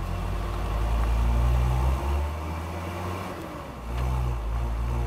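Classic Mercedes-Benz 300 GD G-Wagen's diesel engine running as the truck drives. The note builds, drops off about two seconds in, and comes back up about four seconds in.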